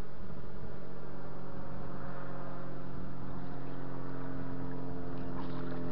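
A boat motor running with a steady, even hum, holding one pitch throughout.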